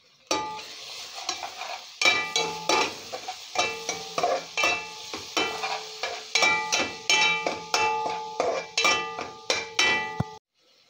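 Onions, chilies and spices sizzling in oil in a frying pan while a utensil stirs them, striking and scraping the pan two or three times a second so that it rings with each stroke. The sound cuts off abruptly about ten seconds in.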